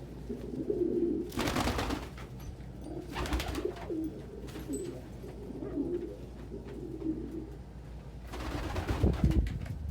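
Domestic pigeons cooing low and continuously, with three short rustling bursts, the loudest near the end.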